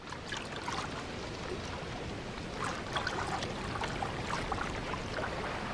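Sea water lapping and sloshing gently around a floating raft of vegetation: a steady wash with small, soft splashes.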